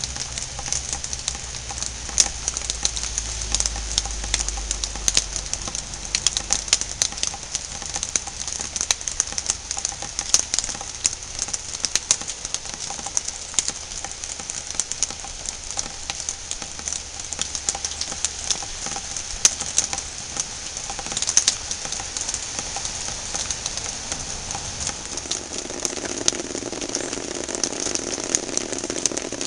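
Steady rain pattering on surfaces, a dense hiss full of sharp drop ticks. A low steady drone joins in near the end.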